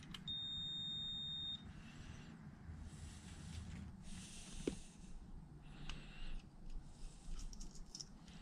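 Digital multimeter's continuity beep: one steady high tone about a second long as its probes touch the contacts of a lathe's forward/reverse drum switch, signalling a closed circuit between them. Then soft clicks and rustling as the switch is picked up and handled.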